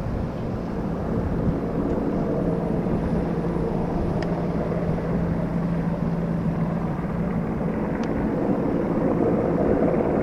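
News helicopter flying nearby: a steady rotor and turbine drone with a humming tone, slowly growing louder as it approaches.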